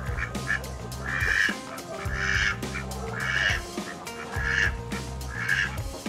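Domestic duck quacking, five loud, rasping quacks about a second apart, over background music.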